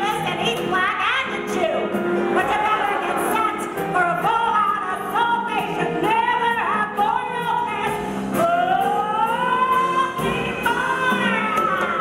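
A woman singing a show tune dramatically over instrumental accompaniment, with one long sustained note sliding upward about two-thirds of the way through.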